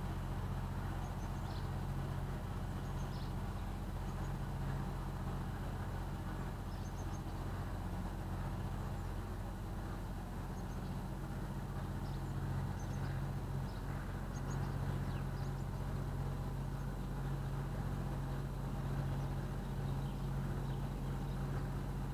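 A small motor cruiser's engine running steadily while the boat moves slowly along a canal, heard as a low, even hum from the bow.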